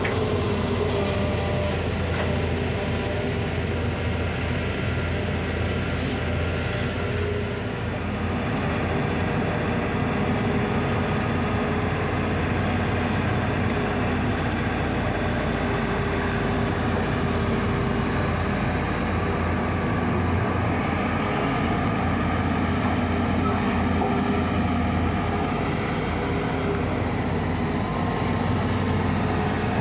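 Hydraulic crawler excavator's diesel engine running steadily under digging load, a constant low drone.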